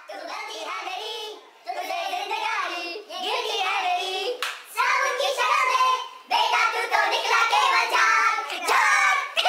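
Several voices singing, with hand clapping. It sounds thin, with no bass.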